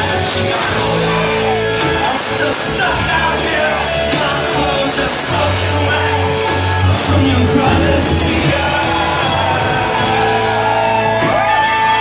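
Live rock band playing with guitars and singing, recorded from within the audience of a large hall, with shouts from the crowd. Near the end a few rising and falling whistle-like tones sound over the music.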